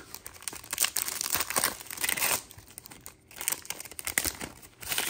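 Foil wrapper of a Panini Donruss Optic football card pack crinkling and being torn open, in two crackly bursts with a short lull between.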